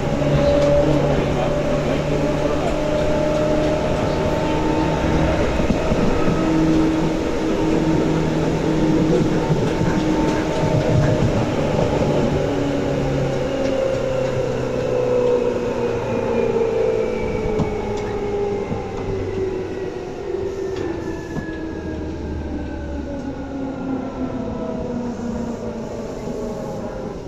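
Seibu 2000 series electric train heard from inside the car: running noise of wheels on rail, with the hum of the traction motors and gears. Over the second half the hum falls steadily in pitch and the noise eases, as the train slows down.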